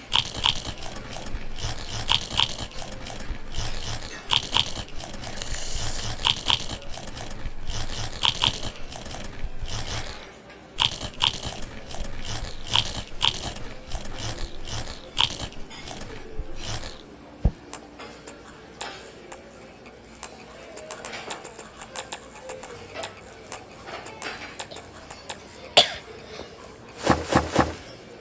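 Irregular clicks, knocks and rustling of things being handled, dense over a low rumble for the first ten seconds, then sparser, with a sharper knock near the end.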